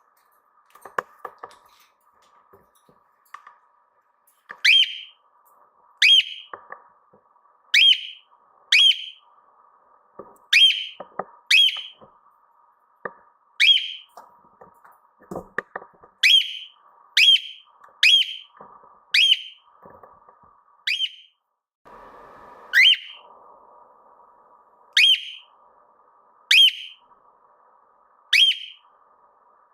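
Cockatiel giving a long run of short, sharp whistled calls, roughly one a second, over a faint steady warbling chatter.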